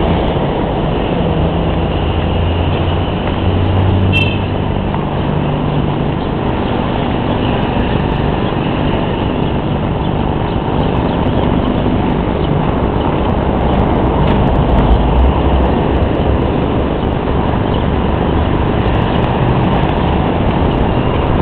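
Steady engine and road noise of a vehicle on the move, with a low hum that shifts in pitch. A short high chirp sounds about four seconds in.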